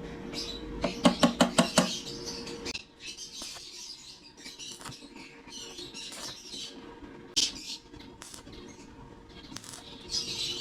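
A quick run of about eight sharp metallic taps lasting about a second, then scattered light clicks and clinks of tools on metal, one sharper than the rest past the middle.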